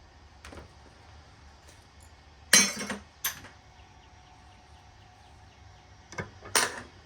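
Loose metal scrap parts clinking and knocking as they are handled and set down: four short, sharp strikes, two near the middle and two near the end.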